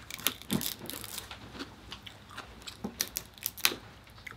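Dungeness crab shell cracking and crackling as pieces are broken and the meat is picked out by hand, with chewing close to the microphone. The clicks and crunches are irregular and sharp.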